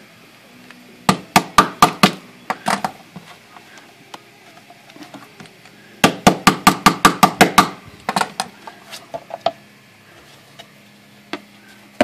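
A screwdriver tip jabs and taps against the metal bottom plate of a Hermes Rocket typewriter, knocking crumbled rubber feet out of their holes. There is a run of sharp knocks about a second in, then a faster rattle of about a dozen knocks around six seconds in, then a few scattered clicks.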